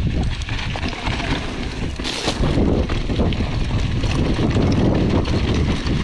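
Wind buffeting the helmet camera's microphone over the rumble and rattle of a mountain bike rolling fast down a dirt trail, with many small clicks and knocks from the bike; a brief louder hiss about two seconds in.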